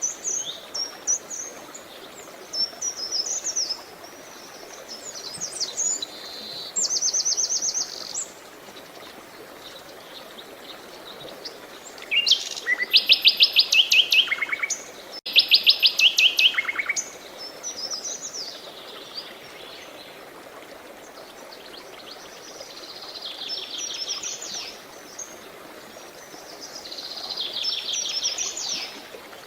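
Songbirds singing in short high phrases and fast trills, with pauses between them, over a faint steady hiss of running water. The loudest are two rapid trills about halfway through.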